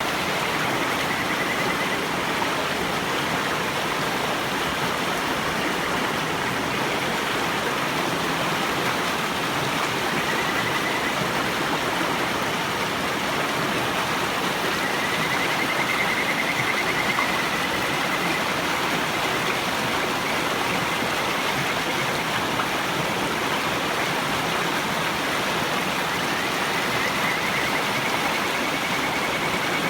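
River water rushing steadily, with kajika frogs (Buergeria buergeri) giving a faint, high, whistled trill about four times, each lasting one to a few seconds.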